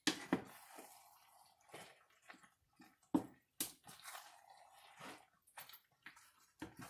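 A spoon folding steak chunks and tortellini through a thick Alfredo cream sauce in a pan: faint wet squelches with several light knocks of the spoon against the pan, the sharpest near the start, a little past three seconds and near the end.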